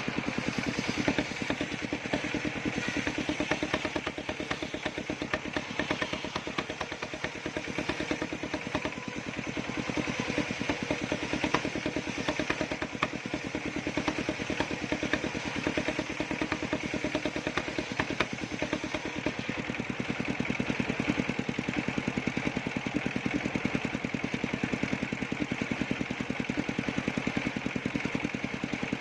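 Engine of a circular sawmill running steadily at an even speed, with a fast, regular beat and no change in pace.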